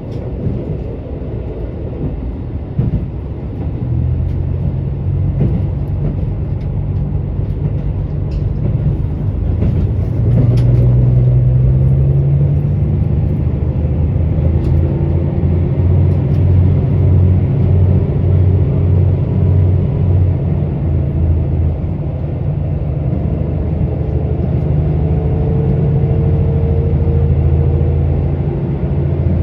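KiHa 85 diesel railcar's underfloor diesel engine running under power with a low, steady drone. It grows louder about four seconds in and again near ten seconds, and a faint rising whine comes in during the second half.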